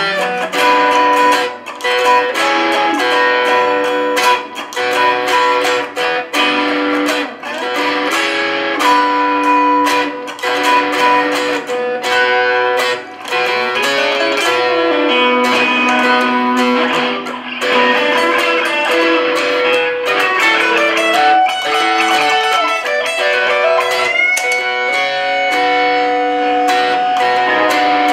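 Two electric guitars, a Stratocaster-style and a Telecaster-style, playing a slow blues together: picked chords and single notes under a lead line of held notes, some bent up in pitch.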